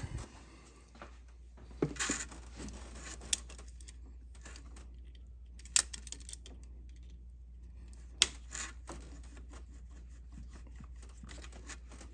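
Sparse metallic clicks and clinks of pliers working a spring band hose clamp onto a rubber coolant hose, with a few sharp snaps, the loudest about two thirds of the way in. A low steady hum runs underneath.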